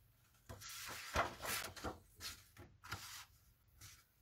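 Sheets of patterned paper being handled and slid over a worktable: soft rustling with a few light taps and knocks.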